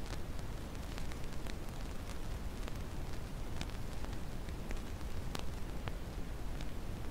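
Dense static noise with a low rumble, broken by scattered irregular crackles and pops.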